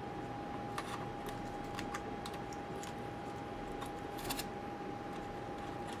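Small, light clicks and taps of fingers handling a thin cable and parts inside an opened MacBook Pro laptop, irregularly spaced, the sharpest about four seconds in, over a steady hiss and thin steady tone.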